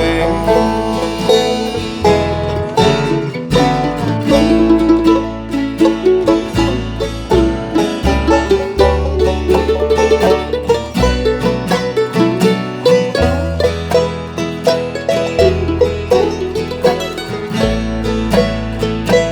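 Bluegrass band playing an instrumental break: a banjo picking quick rolls over guitar and a walking bass line.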